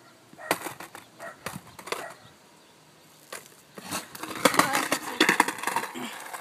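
Scattered sharp knocks and clatters that grow busier about four seconds in, with a person's voice mixed in.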